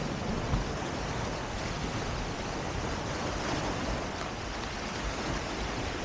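Steady wash of ocean surf on the beach, with wind rumbling on the microphone.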